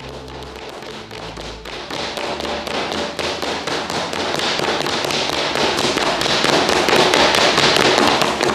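Rapid, dense clatter of many women's heels clicking on a hard floor, growing louder and then stopping abruptly near the end.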